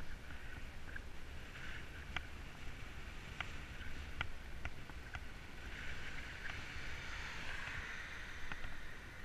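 Wind rumbling on the microphone and tyre hiss from a mountain bike rolling down an asphalt road. Scattered light clicks and rattles come from the bike.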